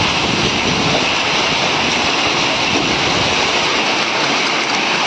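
Heavy rain and hailstones pelting a car roof and a paved courtyard: a dense, steady hiss that holds level throughout.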